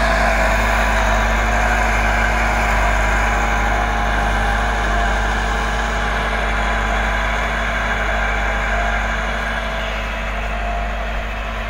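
Massey Ferguson 385 tractor's diesel engine running steadily under load as it pulls an 11-tine cultivator through the soil, slowly fading as the tractor moves away.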